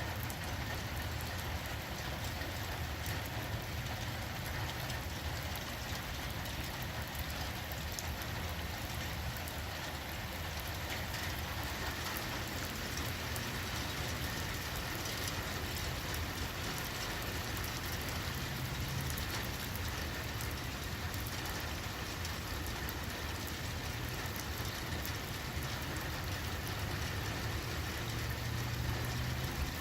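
Steady rainfall, drops pattering on surfaces, over a steady low rumble.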